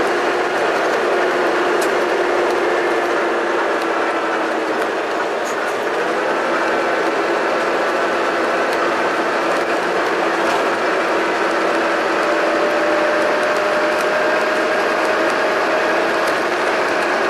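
Alexander Dennis Enviro500 MMC double-decker bus engine and drivetrain running on the move, recorded on board: a steady mechanical hum with gear whine. One whine slowly drops in pitch, and a higher one slowly climbs through the second half.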